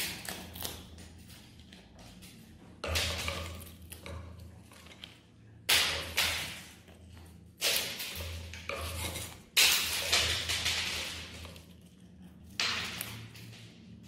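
Blue-and-gold macaw making about five harsh, noisy sounds, each starting suddenly and lasting up to a couple of seconds, with gaps between them.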